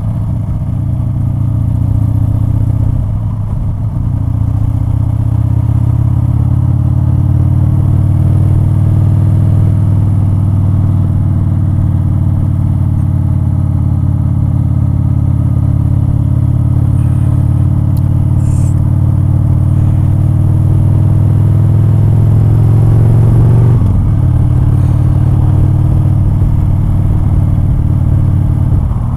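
Motorcycle engine running under way, its pitch climbing slowly as the bike gathers speed, then dropping suddenly about three-quarters of the way through as it shifts gear or rolls off the throttle.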